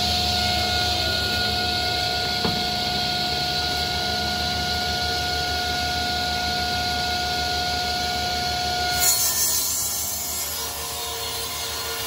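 Table saw running with a steady whine; about nine seconds in, the blade starts ripping a sheet of plywood and the whine gives way to a rougher cutting noise.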